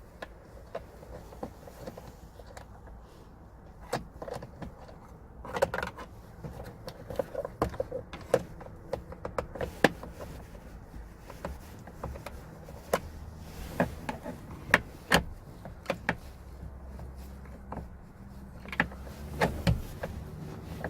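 Irregular clicks, knocks and rattles from a screwdriver and plastic trim panels being worked while two T20 Torx screws are removed, over a steady low hum.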